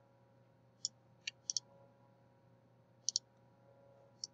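Computer mouse clicking: about seven short, sharp clicks spread through the pause, two of them in quick double-clicks, over a faint steady hum.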